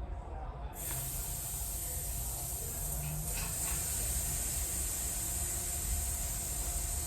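Air hissing steadily out of a bicycle inner tube's valve, starting suddenly about a second in. The tire is being partly deflated so that a bead popping out of the rim can be pushed back in.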